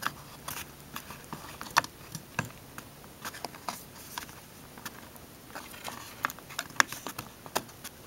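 Irregular light clicks and taps of an LED arrow circuit board being pressed and fitted into a plastic car side-mirror housing, with a few sharper clicks among them.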